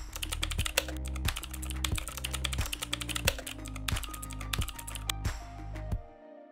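Rapid typing on a computer keyboard, quick clicking keystrokes over background music; the typing stops about five seconds in.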